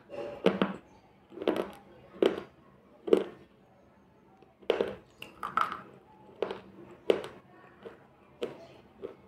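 Close-miked crunching of slate pencil chips being bitten and chewed: about ten sharp crunches at uneven spacing, with a pause of about a second and a half near the middle.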